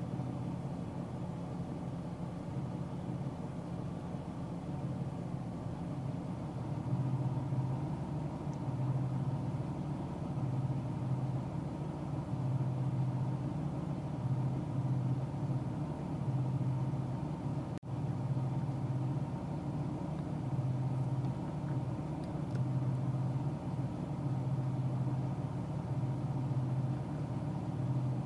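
Car driving at highway speed, heard from inside the cabin: a steady low engine hum and road noise.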